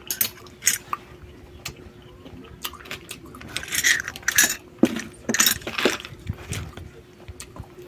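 Irregular clicking and crunching of crab and snail shells being chewed and handled, busiest in the middle.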